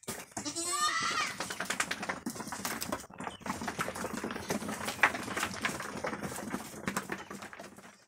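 A goat bleats once near the start. Then comes a busy clatter of many small knocks, goats' hooves shuffling on the wooden plank floor of their pen.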